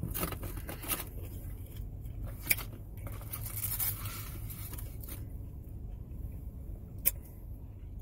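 Crackers being broken by hand over a plastic takeout tray, with crinkling of their cellophane packet: scattered crackles and a few sharp snaps, the loudest about two and a half seconds in and again about seven seconds in. A low steady hum runs underneath.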